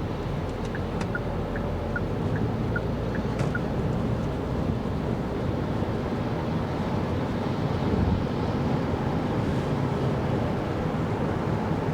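Steady road, tyre and wind noise inside the cabin of a 2024 Kia Carnival Hybrid driving on snowy roads. A light two-note ticking runs for about three seconds near the start.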